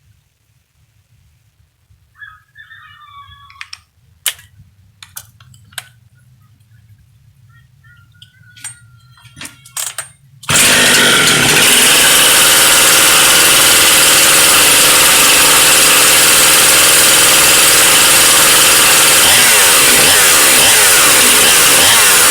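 A few scattered clicks and faint handling noises, then about halfway through a ported Jonsered 535 two-stroke chainsaw with an opened-up muffler comes in abruptly, running loudly at high speed, its pitch shifting near the end.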